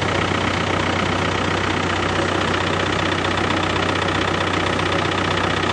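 A vehicle engine idling steadily, a constant low drone with no change in pitch or level.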